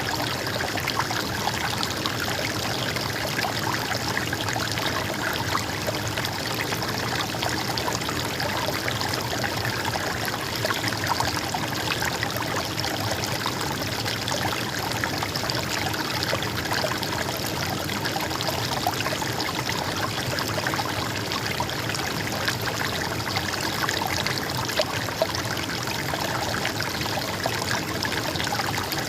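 River or stream water flowing and trickling, a steady even rush without pause.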